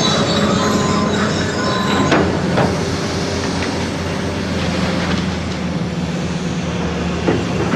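Heavy demolition machinery with its diesel engine running steadily. Metal squeals through the first two seconds, and there are a few sharp clanks of metal and debris, one about two seconds in and one near the end.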